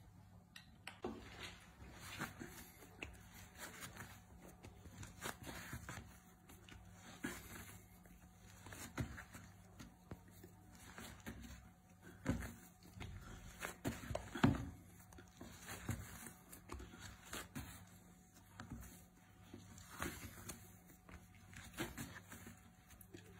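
Faint, irregular squelches and soft thumps of hands kneading bread dough on a wooden board, over a low steady hum.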